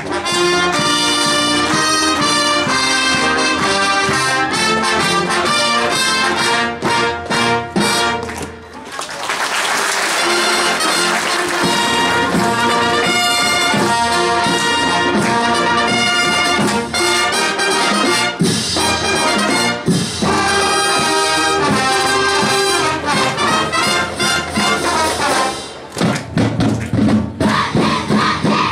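High school marching band playing, with trumpets and mellophones over a drumline of snare, tenor and bass drums. About 26 seconds in the music stops and the players start shouting together.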